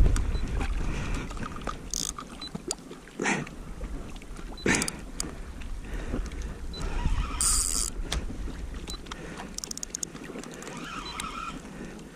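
Low water wash around a float tube, with scattered clicks and knocks from handling a bent spinning rod and reel while playing a big fish. A short hiss comes about seven and a half seconds in.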